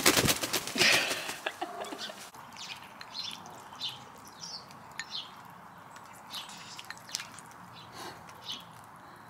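Hens pecking at food in a ceramic bowl: a scatter of short, sharp taps, irregular at roughly two a second. A louder clatter comes in the first second and a half.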